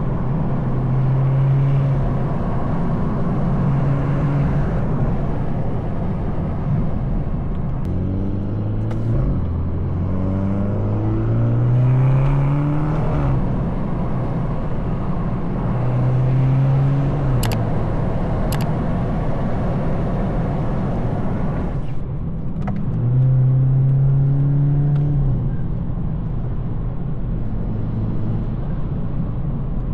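BMW 220i's B48 two-litre turbocharged four-cylinder, on a stage 2 tune with an M240i exhaust and a straight downpipe, running on the road: steady cruising, with the engine note rising in steps through the gears from about 8 to 13 seconds in and falling back. Two short sharp clicks come a little past halfway.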